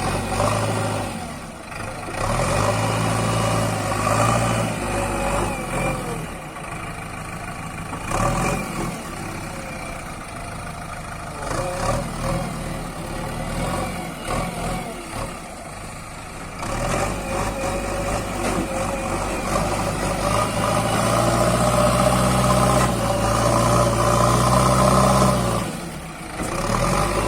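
Heavy diesel engine running, speeding up under load for a few seconds near the start and again for a longer stretch in the second half, settling back to a lower, quieter run in between and dropping off near the end.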